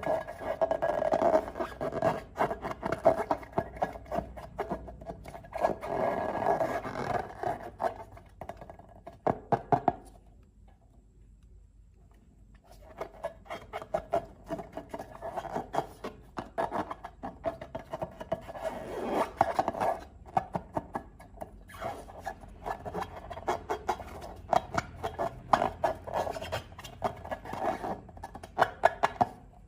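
Slime being squished and worked by hand, with dense small crackles and pops. It stops briefly about ten seconds in, then carries on.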